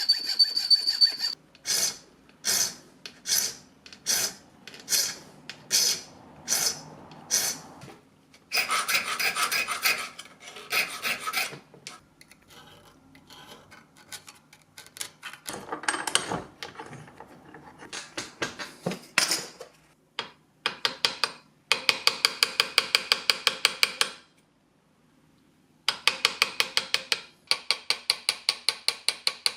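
Hand-sawing and filing a small brass plate, metal rasping stroke by stroke. The strokes are slow and separate at first, then come in fast runs of quick short strokes later on, with a brief pause between runs.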